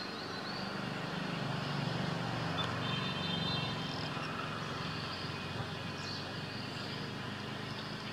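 Steady outdoor background noise: a low rumble that swells a little in the first few seconds, with a faint high hum over it.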